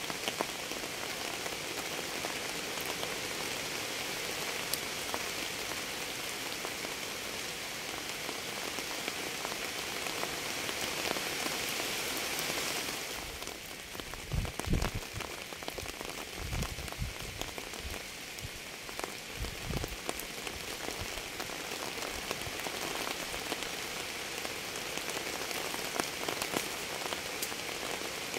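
Steady rain: a dense hiss with close drops ticking through it. About halfway through, the hiss thins and a few low thuds come in over several seconds.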